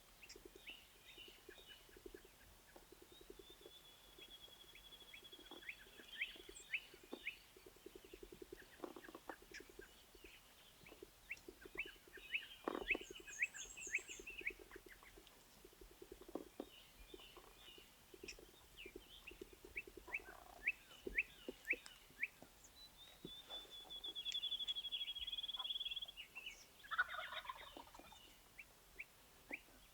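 Wild turkey gobbler gobbling over and over, faint, with songbirds chirping and singing around it, including a high trill twice.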